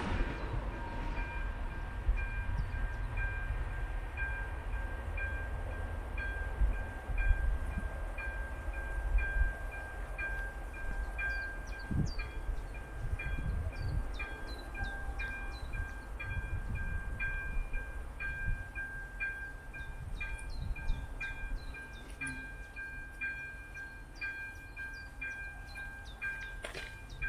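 Level crossing warning bell ringing: a steady, evenly repeated electronic ding, with a low rumble underneath.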